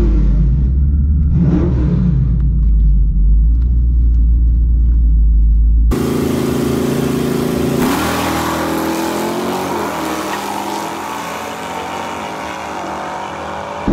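Twin-turbo 2019 Ford Mustang GT's 5.0 Coyote V8 running with a low rumble, heard from inside the cabin while staged at the line. About six seconds in, heard from beside the track, it launches at full throttle, its pitch climbing as the car pulls away down the strip and fades.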